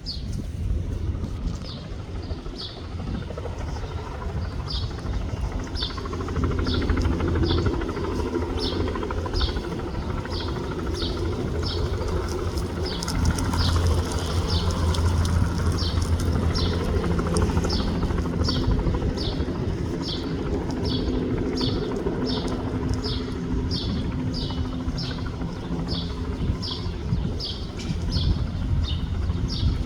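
Bell 206 helicopter's turbine and rotors running with a steady low hum that swells about six seconds in and again near thirteen seconds. Throughout, a short high chirp repeats evenly, about one and a half times a second.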